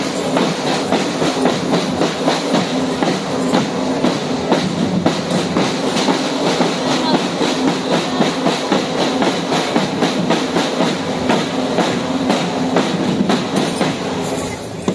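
Train running on rails, its wheels clicking over the rail joints in a rapid, steady rhythm under a continuous rumble. The sound drops away near the end.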